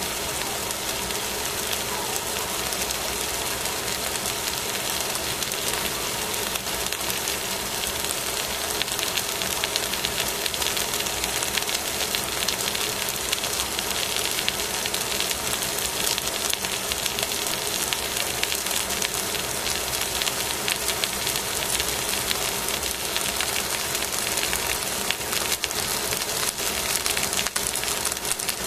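Whole fish sizzling and spitting as they grill on aluminium foil in a metal pan: a steady hiss full of fine crackles, which grows busier about eight seconds in. A faint steady hum runs underneath.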